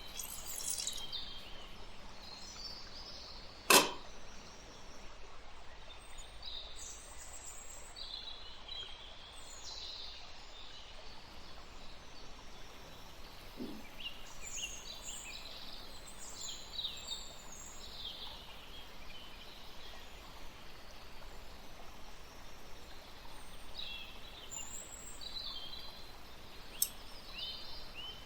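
Faint, scattered bird chirps in the background, with one sharp click about four seconds in and a smaller click near the end.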